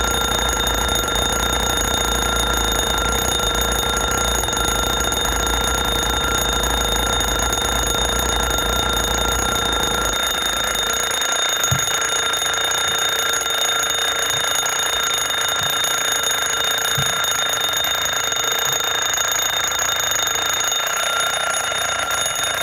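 Loud, continuous alarm-type ringing, held steady and unbroken. A low rumble underneath drops away about ten seconds in.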